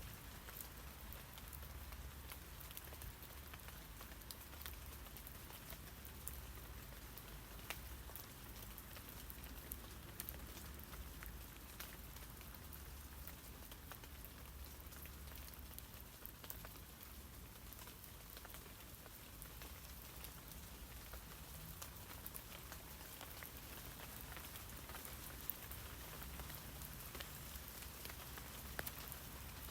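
Steady rain falling on tree leaves: an even, soft hiss with many small drop ticks scattered through it, and a faint low rumble underneath.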